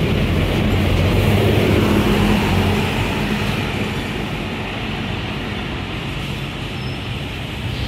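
Street traffic with a city bus's engine running as it passes close and pulls away through the junction, loudest in the first few seconds and then easing off.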